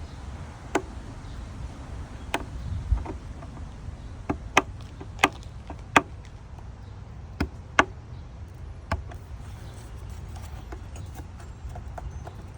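Scattered sharp clicks and knocks, about a dozen at irregular intervals, from hands and tools working on the hard plastic air-intake parts as they are refitted.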